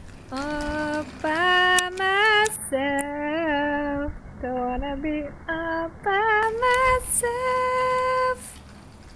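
A woman singing a slow melody alone, in phrases of long held notes with vibrato and short breaks between them, ending on one long steady note about eight seconds in.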